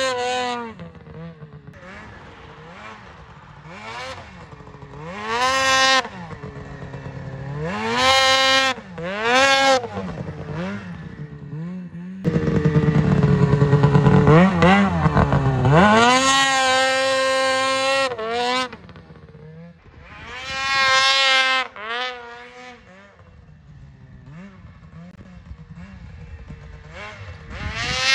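Ski-Doo 600RS race snowmobile's two-stroke engine revving hard over and over as the sled is popped up into wheelies. Each burst rises steeply in pitch and drops back to a low burble. The longest and loudest pull comes about halfway through.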